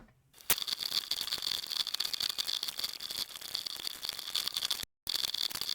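Dense, rapid clicking and rattling of small hard plastic parts: loose mechanical keyboard switches (Akko Cream Yellow Pro) being handled during a switch swap. The sound drops out completely for a moment about five seconds in.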